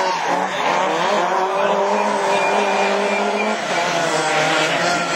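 Several rallycross car engines running at high revs as the cars race round the track, their notes overlapping; one steady engine note drops away about three and a half seconds in.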